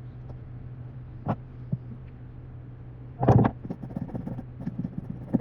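Light clicks and taps of small tools being handled on a repair bench, with a cluster of louder knocks about three seconds in followed by a run of quick small taps, over a steady low hum.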